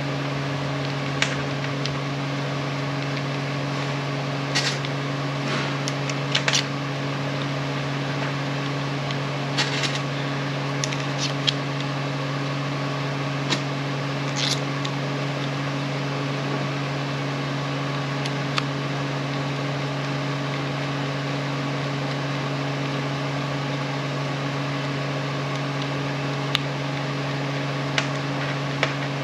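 Steady machine hum with a low droning tone, with scattered small clicks and taps of metal parts and hand tools being handled while an impact wrench is reassembled.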